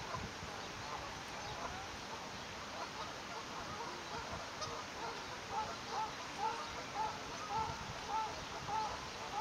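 Adult swan giving short, soft calls to her newly hatched cygnets, sparse at first, then repeated about twice a second from the middle on, over a steady background hiss.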